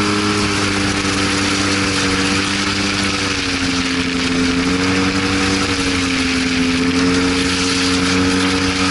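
Arctic Cat Wildcat side-by-side's engine running steadily as it drives across rough stubble, heard from onboard, its pitch rising a little about four seconds in. A steady rush of wind and terrain noise runs under it.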